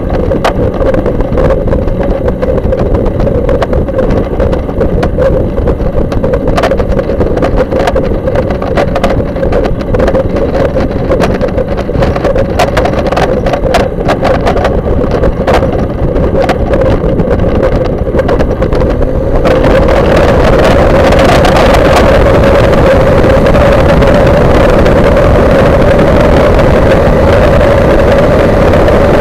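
Kolb Mark III ultralight's engine and propeller running steadily as the aircraft taxis, with scattered clicks. About twenty seconds in, the engine is throttled up and the sound turns louder and fuller.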